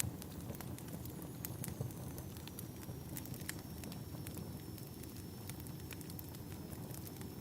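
Wood fire burning in a fireplace: a steady low rumble of flames with frequent sharp, irregular crackles and pops from the logs.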